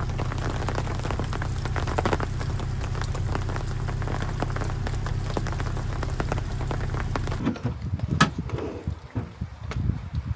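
Steady rain pattering down, with a low steady hum beneath it. It cuts off abruptly about seven and a half seconds in, leaving a few sharp knocks.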